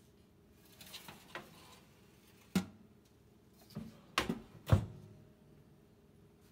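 Roasting pan and wire rack being loaded into a Breville Smart Oven Air and its glass door shut: a faint metal scrape, then a sharp click and a series of metal clunks, the loudest near the end.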